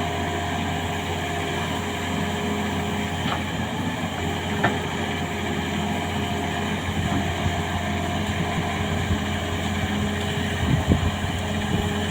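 Hitachi Zaxis 210F excavator's diesel engine running steadily at work, with a few short knocks, the loudest near the end.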